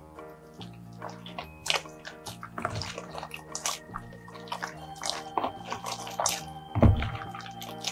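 Bead-filled slime being squeezed and kneaded by hand, wet squelching and popping, over background music with held notes; a louder, heavier squelch near the end.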